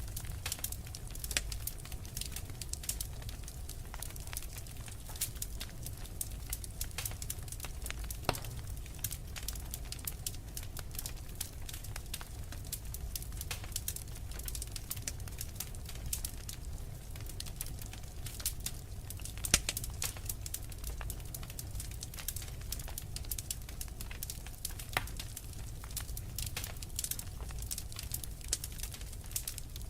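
Wood fire burning in a fireplace, crackling with many small irregular pops over a low, steady rumble of the flames. A louder pop comes about eight seconds in and another near twenty seconds.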